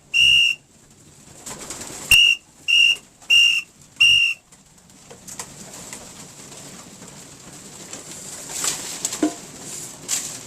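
Five short blasts on a pigeon-calling whistle, each a steady high tone: one at the start, then four in quick succession about half a second apart, the signal that calls young racing pigeons in to feed. Afterwards pigeons coo in the background.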